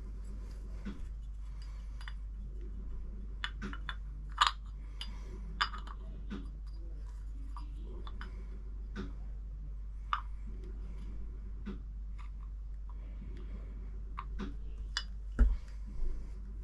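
Small metal carburetor parts of a Mercury outboard clicking and clinking as they are handled and fitted together, in scattered light taps with a louder knock near the end.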